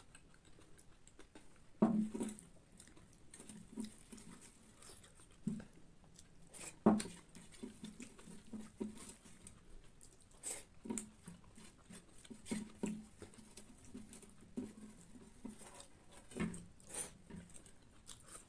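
Chewing and small mouth sounds of a person eating scrambled egg by hand, with a few sharp clicks as fingers scrape and tap a steel plate.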